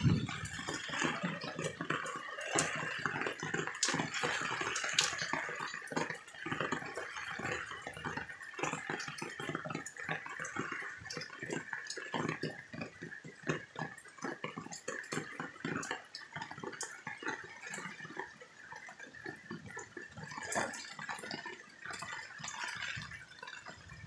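Heavy rain: a steady hiss of falling rain with dense, irregular drips and drops spattering close by on wet surfaces.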